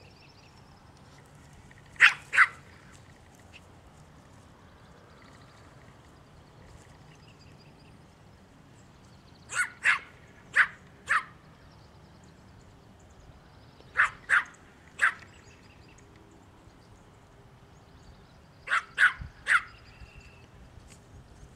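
Small black-and-tan dog play-barking at its ball: four bursts of two to four sharp barks each, spread across the stretch.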